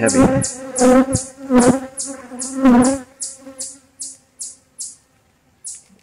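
Honeybees buzzing around an open hive frame close to the microphone: a hum that swells loud several times, then falls away about three seconds in. A high, regular chirp repeats about three times a second behind it and thins out near the end.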